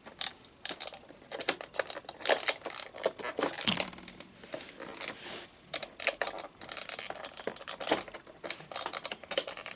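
Packaging being handled: crinkling, rustling and irregular clicks and scrapes as the model locomotive is worked out of its tight-fitting box and wrapping.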